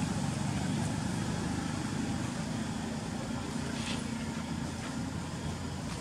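Motor vehicle engine running steadily, a low hum with no clear rise or fall.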